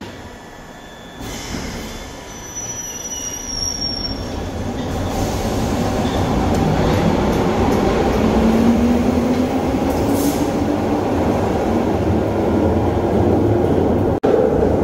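A Glasgow Subway train pulling out of the platform and gathering speed. Its running noise builds and a whine rises in pitch as it accelerates into the tunnel. Near the end the noise breaks off abruptly into another train's steady sound.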